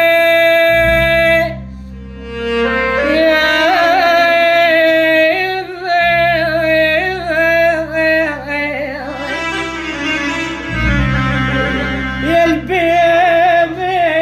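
Iraqi lament music between sung lines: an ornamented melody that bends and wavers over a steady low drone, with a long held note at the start.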